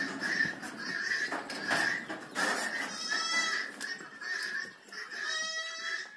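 Goats bleating, several calls in turn, the clearest a long pitched bleat near the end.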